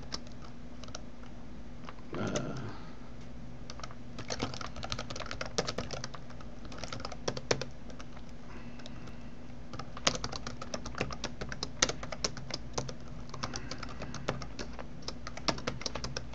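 Computer keyboard typing in runs of quick keystrokes with short pauses between, over a steady low hum.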